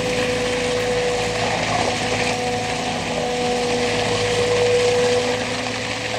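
Caterpillar 272C skid-steer loader's diesel engine running steadily as it drives with a loaded pallet on its forks, with a steady whine over the engine note; a little louder about four to five seconds in.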